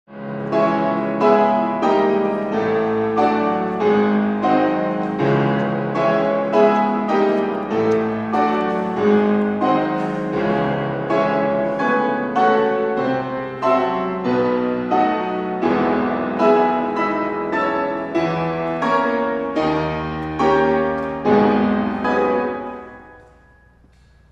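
Solo piano playing a gentle passage of repeated chords, struck about twice a second, which fades away near the end.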